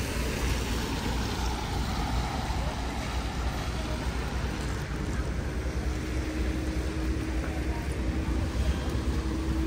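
Street traffic on a rain-soaked road: tyres hissing on the wet pavement under a steady rumble of passing vehicles, with a steady engine hum joining about six seconds in.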